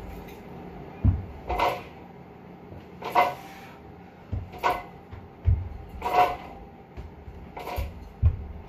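Sharp breaths pushed out on each rep of a seated overhead press, about one every one and a half seconds, four in all. Between them the loaded barbell and its weight plates give low knocks and rattles.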